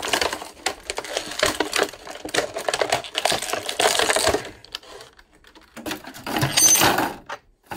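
Rapid clattering and clicking of small hard toy parts being handled, dense for the first few seconds, then easing off. A shorter burst of clatter with a brief metallic ring comes near the end.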